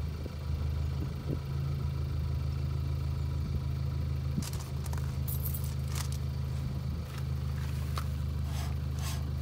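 A vehicle engine idling steadily with a low hum. From about halfway there are light clicks and scrapes as a rebuilt rear brake disc and caliper are handled and the disc is turned by hand.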